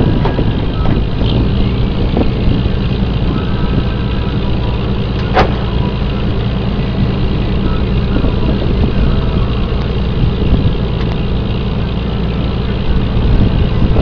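Lobster boat's engine running steadily, a low drone, with one sharp knock about five seconds in.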